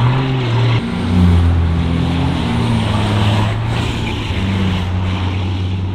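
Sisu Nasu articulated tracked carrier, re-powered with a Cummins 6.7 diesel, driving along pavement with its engine running under load; the engine note steps up and down in pitch a few times.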